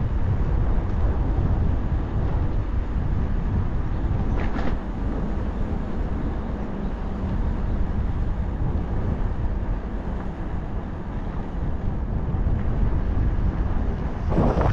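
Wind rushing over an action camera's microphone while riding a bicycle, a steady low rumble.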